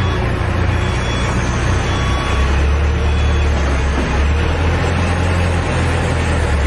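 Heavy vehicle engine running steadily, loud and low-pitched.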